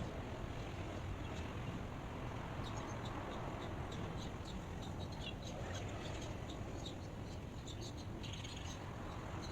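Steady rushing noise like wind or white noise, with small birds chirping in quick, short high notes from about three seconds in until near the end.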